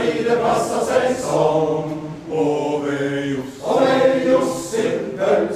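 Men's choir singing in harmony, holding long chords in phrases with brief breaks between them.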